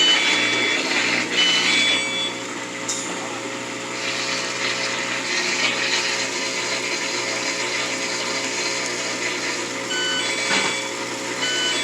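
Laundry machine running with a steady motor hum, with short electronic beeps near the start and again near the end.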